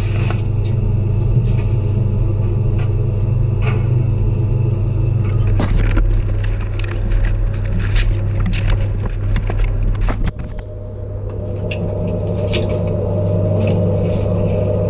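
Gear bags being pushed and dragged through a steel transfer trunk between hyperbaric chambers, with repeated scrapes and knocks, over a loud, steady low machinery hum. The knocking stops about ten seconds in, and the hum changes.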